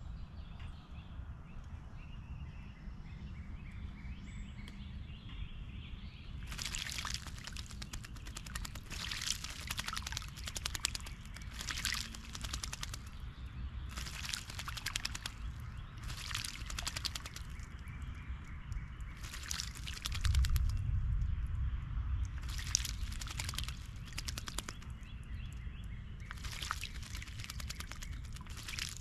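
An American robin bathing in a pedestal birdbath, splashing the water in repeated bouts of a second or two each, about eight in all, starting several seconds in. A brief low rumble comes about two-thirds of the way through.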